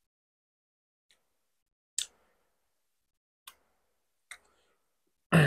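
Eating mouth sounds: a few short, sharp clicks and smacks spaced a second or so apart with silence between them, and a louder, fuller one just before the end.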